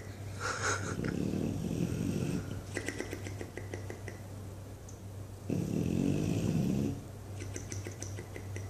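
English Bulldog snoring in its sleep: two long snores, the second and louder one about halfway through, each followed by a quick fluttering flap of its loose lips as it breathes out.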